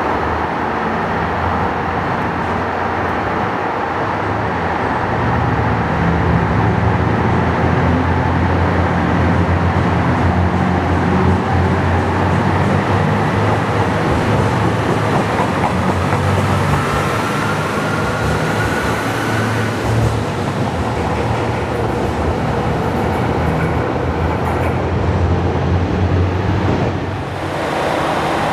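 Diesel railcar engines at a station: a steady low engine rumble, with a whine that rises in pitch for several seconds in the middle as a railcar gathers speed.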